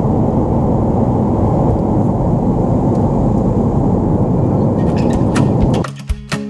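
Airliner cabin noise during takeoff, heard through the window seat: jet engines at takeoff power and the airframe making a loud, steady low rumble. It cuts off suddenly about six seconds in as plucked acoustic guitar music starts.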